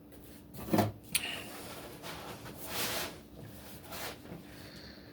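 Foam packaging and cardboard box being handled: a few short knocks and scrapes and a brief rustle.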